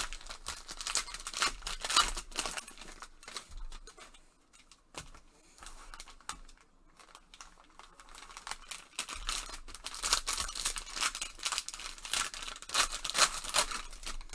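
Plastic trading-card pack wrappers being torn open and crinkled by gloved hands. It comes in two spells of crackling, with a quieter stretch between them and the second starting about nine seconds in.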